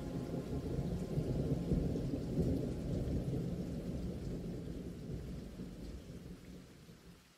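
Thunder rumbling over steady rain, strongest in the first few seconds, then fading out toward the end.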